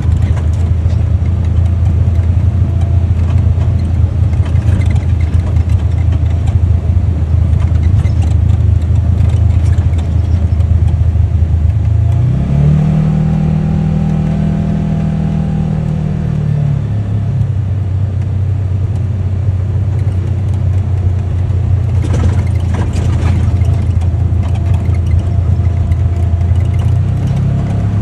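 UTV engine running steadily at low revs, picking up speed about halfway through for a few seconds before settling back, then climbing again near the end.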